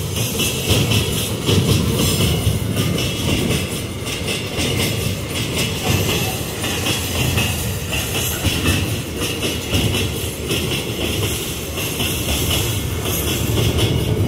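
Empty steel iron-ore gondola wagons of a long freight train rolling past close by: a steady rumble of steel wheels on rail with frequent clicks and clanks.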